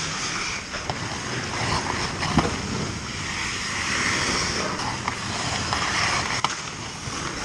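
Ice hockey skates scraping and carving on rink ice: a steady hiss, with a few sharp clicks of sticks and puck, the loudest about two and a half seconds in.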